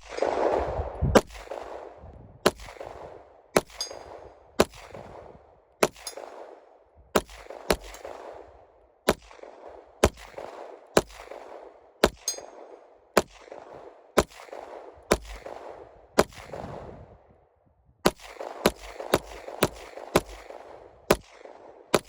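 A string of single gunshots fired about one a second, each followed by a rolling echo. There is a short pause about sixteen seconds in, then five or six quicker shots near the end.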